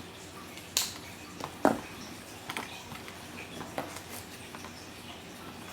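Scattered light clicks, taps and crinkles from items and packaging being handled on a table, about eight in all, the loudest a little under two seconds in.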